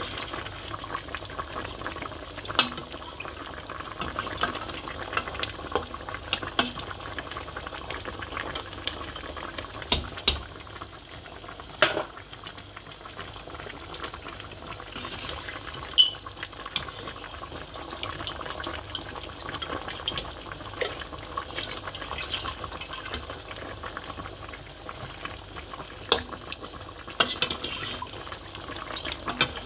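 Large steel pot of meat stock boiling hard: steady bubbling, with a few sharp clicks scattered through it.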